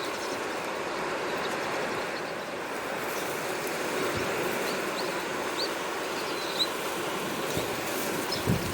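Steady wash of sea waves, with a few short high bird chirps in the middle and a couple of low thumps near the end.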